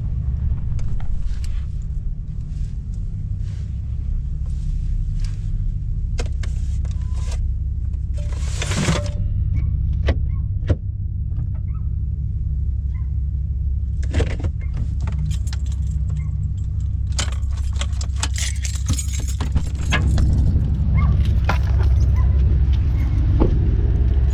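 A vehicle's engine running at low speed, a steady low rumble, with many small clicks and rattles over it as it is moved; a brief hiss about nine seconds in, and the engine gets louder over the last few seconds.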